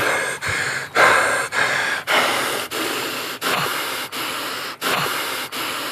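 A man panting hard: rapid, heavy breaths in and out, about one every half second to two-thirds of a second. A few carry a faint voiced groan.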